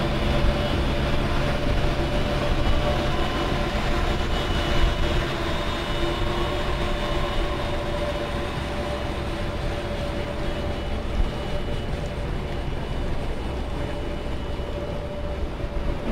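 Navatek UHAC tracked amphibious craft driving on land: a steady engine drone mixed with the running noise of its big tread cells, with a few steady whining tones on top. It slowly grows fainter as the craft moves past.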